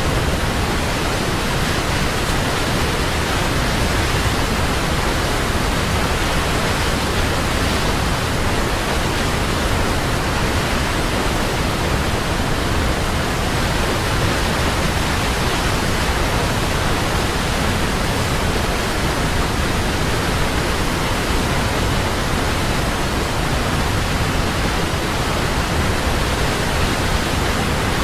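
Large waterfall: a steady, loud rush of falling water, even and unbroken.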